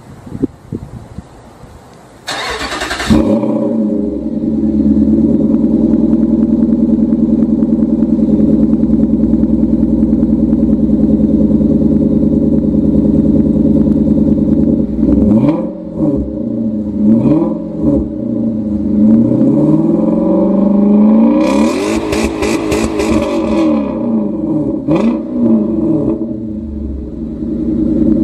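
Infiniti FX45's 4.5-litre V8 cranked and started about two seconds in, then idling steadily through its twin exhaust before being revved: a few quick blips, one longer rev that climbs and falls back, and another blip. The exhaust note is louder than the car looks to have, which the owner thinks comes from a previous owner's tune or muffler work.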